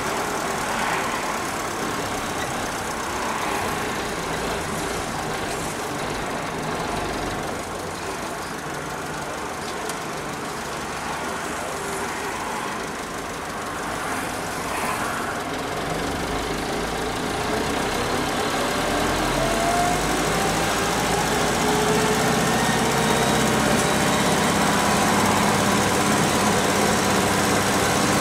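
Mercedes 208 D van's diesel engine running in traffic, heard from inside the cab. In the second half the engine note climbs steadily and grows louder as the van gathers speed.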